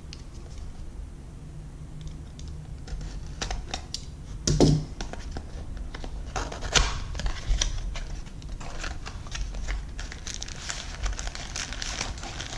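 A small cardboard box being opened by hand: scattered clicks and scrapes, with a louder knock about four and a half seconds in. In the last few seconds, plastic packaging crinkles as the inner tray is slid out.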